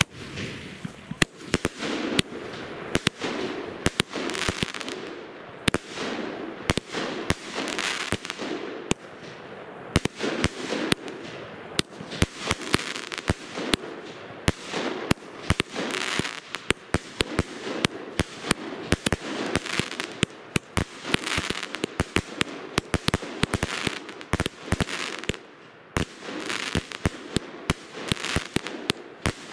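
Lesli 'Pulp Fiction' firework battery firing shot after shot: hissing launches and crackling star bursts overlap, with sharp bangs several times a second.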